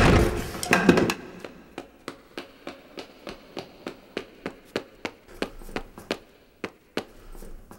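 A loud hit at the start and a second hit about a second in, followed by a steady run of sharp ticks, about three a second, that slowly fade away near the end.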